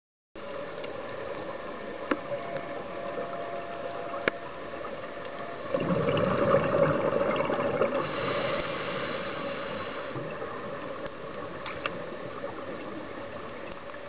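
Underwater sound of a scuba diver breathing through a regulator: a louder rush of exhaled bubbles about six seconds in, lasting some four seconds, over a steady hiss with a few sharp clicks.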